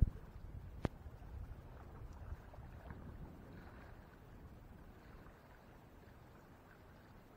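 A sharp knock right at the start and a second one about a second in, then a low, steady rumble of wind on the microphone with lake water lapping at the shore, slowly fading.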